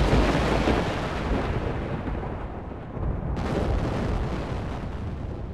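Cinematic intro sound effects: a deep boom with a long rumbling tail that slowly fades, then a second boom about three and a half seconds in, also fading.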